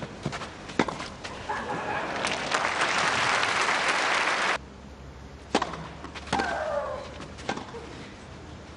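Tennis ball struck by rackets on a clay court, followed by crowd applause that cuts off suddenly about halfway through. Then a new rally: racket hits, with a player's shriek falling in pitch on a shot.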